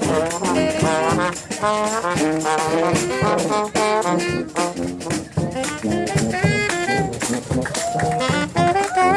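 Street brass band playing live: several horns carrying the tune over regular drum hits.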